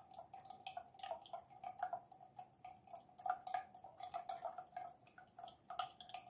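Faint, irregular drips of used cooking oil falling from an upturned glass bottle into oil pooled on a muslin filter cloth, with a faint steady tone underneath.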